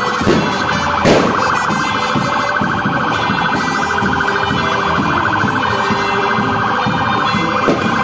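Electronic siren warbling rapidly and steadily over the noise of a street crowd, with one sharp bang about a second in.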